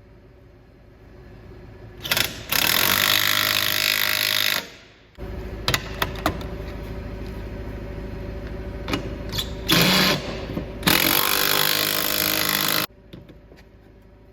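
A power tool run hard in two bursts of about two and a half seconds each, working on the cutting-edge bolts of a skid-steer bucket. Between the bursts there is a steady low hum with a few sharp clicks.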